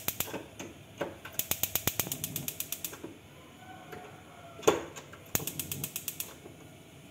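Spark igniter of a Rinnai three-burner built-in gas hob clicking rapidly, about nine clicks a second, in short runs while a burner knob is held turned. A single louder knock comes in the middle, and the last run of clicks stops just after six seconds as the large burner lights.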